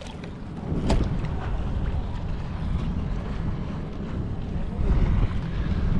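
Wind buffeting the camera microphone on a kayak at sea, a steady low rumble, with a sharp knock about a second in.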